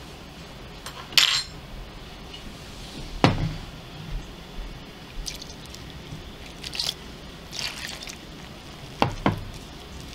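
Kitchen handling sounds at a ceramic mixing bowl as flour is mixed by hand: a sharp clink about a second in, a heavier knock a couple of seconds later, soft scraping in the middle, and two quick knocks near the end, over a steady hiss.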